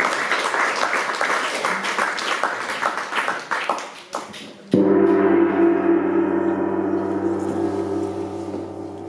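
Audience applause thinning out, then a single strike on a large hanging gong about five seconds in. The strike is the loudest sound, and the gong rings on with a steady, many-toned hum that slowly fades.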